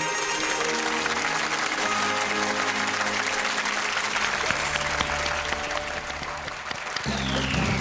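Audience applauding over instrumental music with long held notes. About seven seconds in, a new piece of music starts with a heavy low bass.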